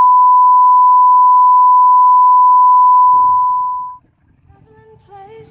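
A loud, steady electronic beep at a single pitch of about 1 kHz, like a test tone. It fades out about four seconds in, and soft music begins near the end.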